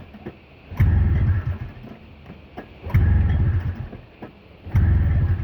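Snowmobile engine being pull-started and turning over without firing: three pulls, each about a second long with rapid low chugging, about two seconds apart. The sled fails to start.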